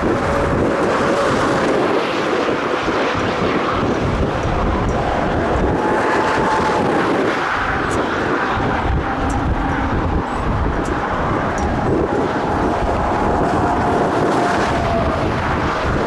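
Jet airliner engine noise with a faint steady whine that drifts slowly lower in the second half, under heavy wind buffeting on the microphone.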